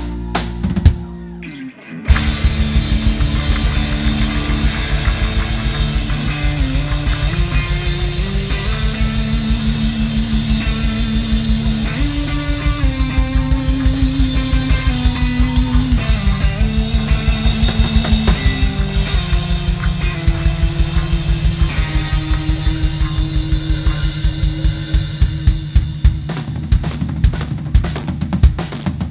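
Band playing instrumental music with a fast, steady drumbeat and a moving bass line, kicking in hard about two seconds in after a brief drop.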